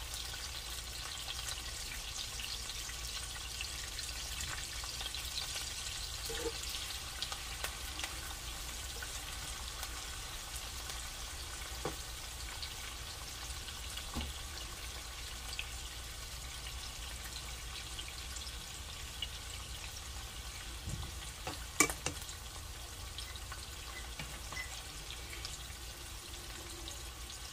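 Sliced onions and bell peppers sizzling as they sauté in hot oil in a skillet, a steady crackle. A few light clicks sound over it, the sharpest about three-quarters of the way through.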